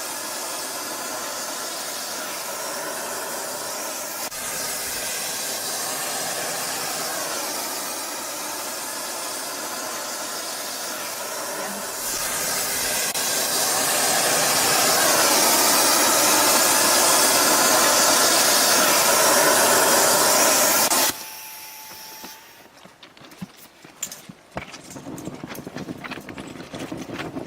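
Thermite welding of railway rails: a loud, steady hiss runs on, growing louder about halfway through. It cuts off suddenly about three-quarters of the way in, leaving quieter scattered clicks and knocks.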